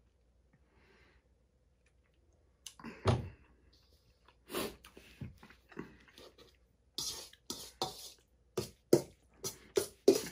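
A metal spoon scraping and clinking against a stainless steel mixing bowl in a run of short strokes, about two a second, growing busier in the second half. About three seconds in there is one louder thump.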